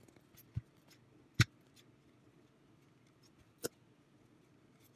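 A few sharp clicks of the Sigelei 213 vape mod's buttons being pressed over quiet room tone. The loudest click is about a second and a half in, and another comes near the end.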